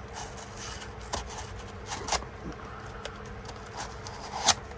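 A shipping package being handled and opened: scattered scrapes, rustles and clicks, with the sharpest click about four and a half seconds in.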